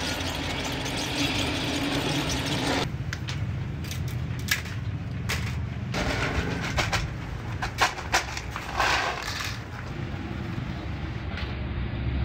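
Bench drill press running and drilling through a metal sheet for about three seconds, cutting off suddenly. Then scattered metal clicks and knocks from handling parts over a steady low rumble.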